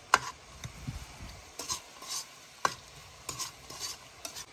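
A spoon stirring and scraping meat and vegetables in a frying pan on a portable gas stove, with a light sizzle of frying underneath. Sharp clinks of the spoon against the pan come at irregular moments, the loudest just after the start and another about two and a half seconds in.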